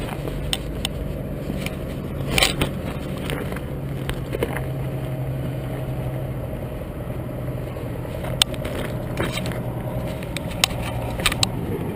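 Clothing rustling and scraping close against the microphone during a pat-down, with scattered knocks and clicks, over a steady low hum of an idling vehicle engine.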